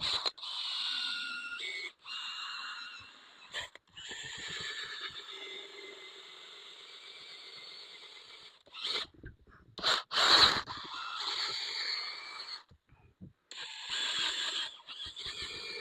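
Electric polisher with a buffing pad running on a headlight lens with rubbing compound: a high motor whine that starts and stops several times, shaking hard against the lens, with a couple of short louder bursts about nine and ten seconds in.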